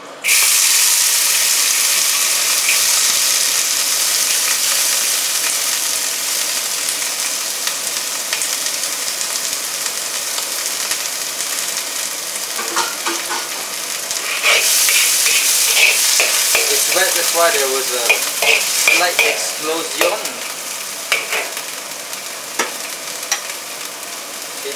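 Food sizzling in a hot oiled pan, starting abruptly and loudly as it goes in, then stir-fried with a spatula that scrapes, squeaks and taps against the pan from about halfway through.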